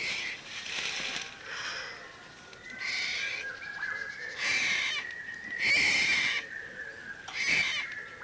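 Very young tiger cub crying, a series of about six high, rasping mewing calls. A thin steady high tone runs behind them.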